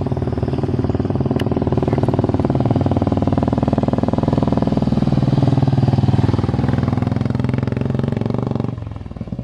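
Old Royal Enfield Bullet's single-cylinder engine with its thump, growing louder as the motorcycle rides up the dirt track and passes close by, loudest about two-thirds of the way in. The sound drops away abruptly near the end.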